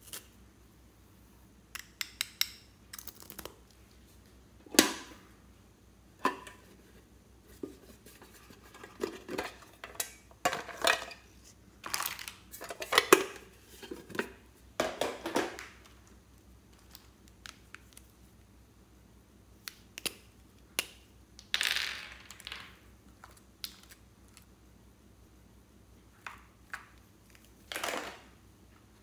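Hands handling hard plastic cosmetics and crinkly plastic toy packaging. Irregular clicks and taps of plastic come with short bursts of crinkling. They are busiest in the first half and scattered after it, with two brief crinkling bursts later on.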